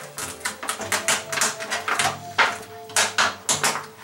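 White reflector sheet being peeled away from an LED TV's backlight panel, crackling and rustling in quick, irregular bursts.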